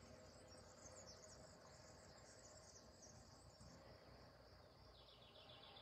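Near silence with faint, high-pitched insect chirring, and a few faint chirps near the end.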